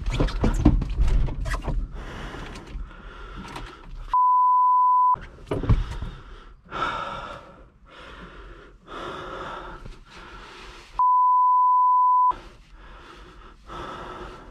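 Two censor bleeps, each a steady single high tone about a second long, laid over muted audio about four and eleven seconds in. Fainter, patchy sound lies between them.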